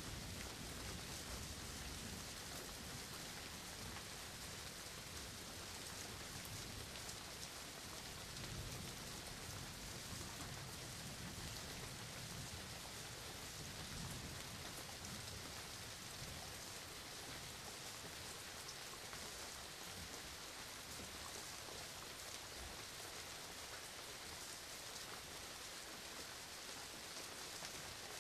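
Steady rain falling, with a low rumble of thunder dying away in the first few seconds.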